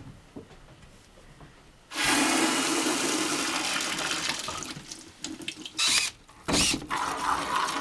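Water gushing from a just-opened valve into a plastic bucket as freshly pressure-tested copper supply lines are drained by gravity. It starts suddenly about two seconds in and slowly weakens. Two short, loud noises follow near the end.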